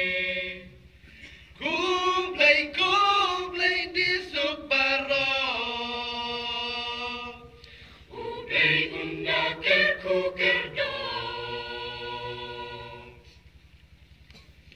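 A choir singing a thanksgiving song in two phrases of held chords, with short breaths between them. The final chord is held and fades out about a second and a half before the end.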